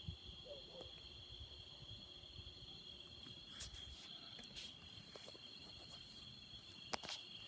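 Crickets chirping steadily in a high, even trill. A sharp click comes about three and a half seconds in, and another comes near the end.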